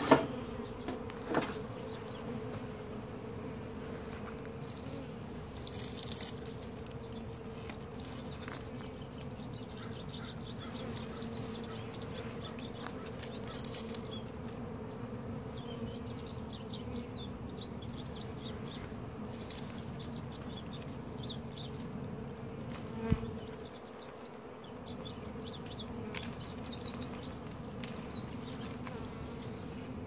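Honeybee swarm buzzing with a steady, even hum as the cluster walks into a wooden nuc box. A single sharp knock sounds about three-quarters of the way through.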